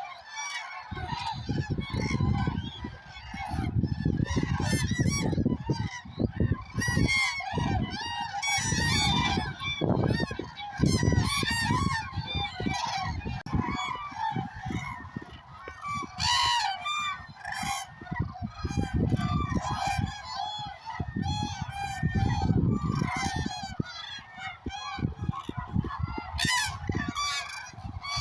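A large flock of common cranes calling continuously: many overlapping trumpeting, honking calls, with a low irregular rumble underneath.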